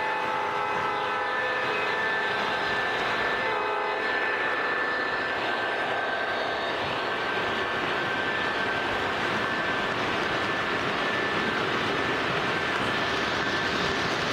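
An O scale toy train's locomotive sound system blowing a multi-note horn, a long blast ending about two seconds in and a short one near four seconds, over the running of the train. Then steady rolling of the freight cars' metal wheels on three-rail track as they pass close by.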